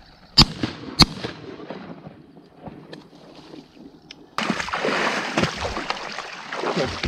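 Two shotgun shots about half a second apart. About four seconds in, a steady close rushing noise starts abruptly.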